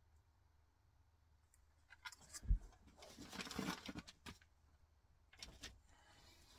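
Handling noise from fitting parts onto a plastic-bodied RC crawler truck: rustling with light clicks and one knock, starting about two seconds in, then a short run of clicks near the end.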